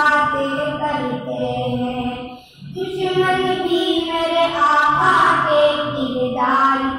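Boys singing a naat, a devotional song in praise of the Prophet, with no instruments. They hold long, melodic lines and take a short breath pause about two and a half seconds in.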